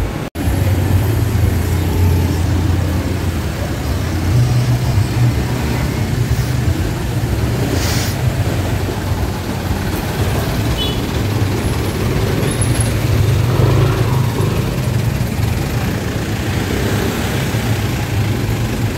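Street traffic: cars and motorbikes running and passing, a steady low engine rumble, with a brief hiss about eight seconds in.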